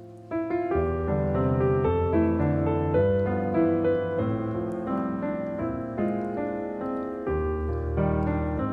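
Background piano music: a melody of steady sustained notes over a bass line, getting louder about a third of a second in.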